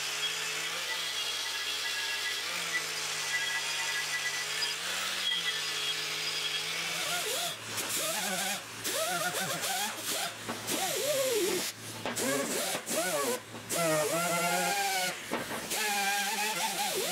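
Pneumatic die grinder running with a steady whine and air hiss. About seven seconds in, its pitch starts wavering up and down with short breaks as the small wheel is pressed onto and lifted off a suspension arm to clean it.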